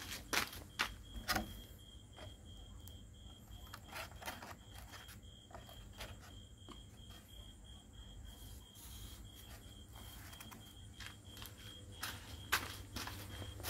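Plastic bowls and dishes clicking and knocking as they are handled, with the sharpest knocks in the first second and a half and again near the end. Behind them a steady, pulsing high chirp repeats throughout.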